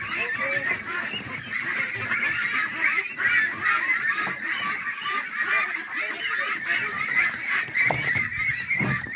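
A large flock of domestic ducks quacking together in a dense, continuous chorus of many overlapping calls. A couple of low knocks sound near the end.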